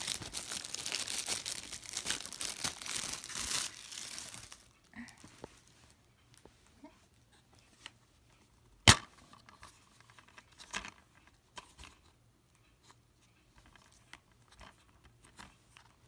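Cellophane shrink wrap crinkling and tearing as it is stripped off a plastic DVD case for about four and a half seconds. After that come scattered light clicks of the plastic case being handled and opened, with one loud sharp snap about nine seconds in.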